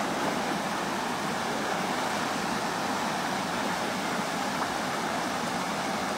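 Water spilling over a low concrete weir and rushing over rocks in shallow rapids: a steady rush with no breaks.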